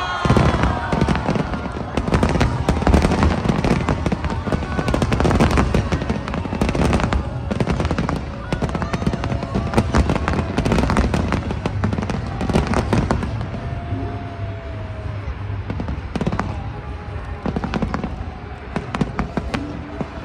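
Large aerial fireworks display: shells bursting in rapid, overlapping succession, a continuous run of booms and crackles over a low rumble.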